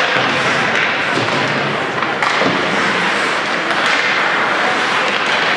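Ice hockey game in a rink: steady noise of skating play and the arena, with one sharp knock about two seconds in.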